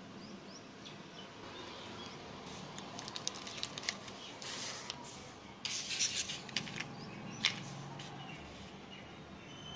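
Hands handling craft supplies on a paper surface, a clear plastic container and a blister-packed glue tube: rubbing and rustling, with scattered short crinkles and light clicks of plastic packaging, busiest in the middle.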